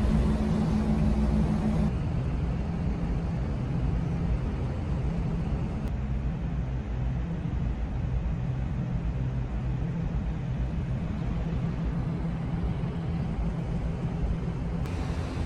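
Steady low rumble and hum of a moving vehicle heard from inside, with an abrupt change in the sound about two seconds in and again near the end.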